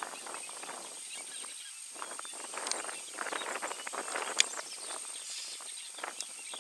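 Dry brush rustling and crackling as African elephants browse in the bushes, with one sharp crack about four seconds in. A thin, steady high tone runs underneath.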